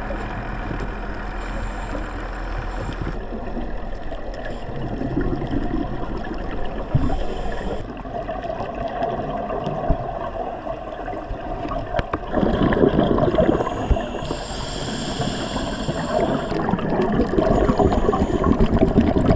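Scuba diver breathing through a regulator underwater: each inhale is a hiss from the demand valve, and each exhale is a loud burst of bubbling from the exhaust. Roughly two full breaths are heard.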